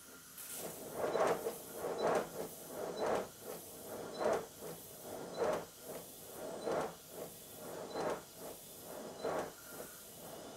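Model 'Speedy' pannier tank locomotive running on compressed air on a rolling road: its exhaust beats puffing over a steady hiss, about one and a half beats a second and not evenly spaced. It is on low pressure, and the owner puts the uneven beats down to rust probably still in a cylinder and the small rollers giving little flywheel effect.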